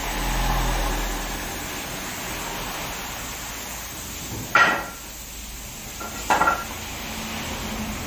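Two sharp metallic clinks about a second and a half apart: one loud single strike, then a quick double or triple clink, both briefly ringing. A low steady hum runs underneath.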